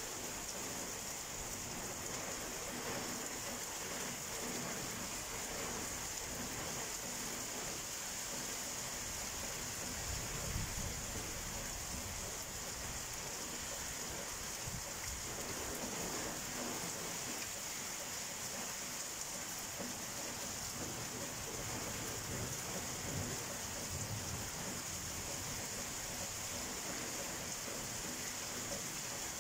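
Steady rain falling in an even hiss, with low rumbles of thunder about ten seconds in and again through the middle.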